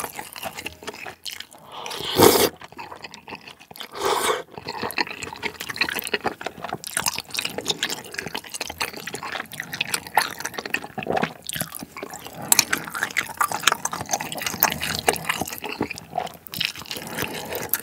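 Close-miked slurping and wet chewing of thick Chinese glass noodles in spicy malatang broth, with many small sticky clicks and smacks. The two loudest slurps come about two and four seconds in.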